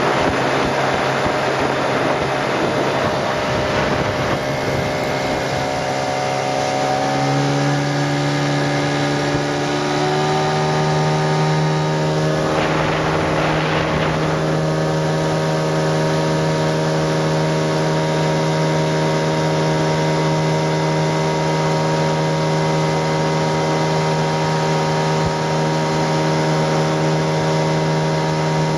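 Mariner 25 hp outboard motor pushing an inflatable boat. Its pitch steps up twice early on as the throttle opens, then it holds a steady cruising note. A brief rushing noise comes about thirteen seconds in.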